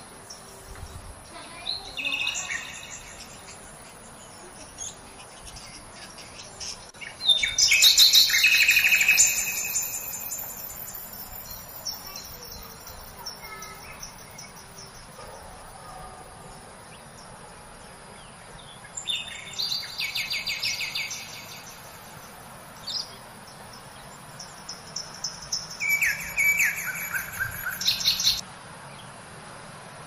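Rainbow lorikeets calling in several bursts of shrill, rapid screeches, loudest about eight seconds in, with further bursts around twenty and twenty-seven seconds.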